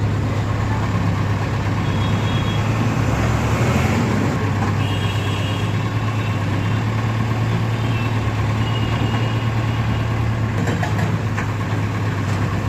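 Diesel engine of a heavy construction machine running steadily, a deep continuous hum with a few faint clicks near the end.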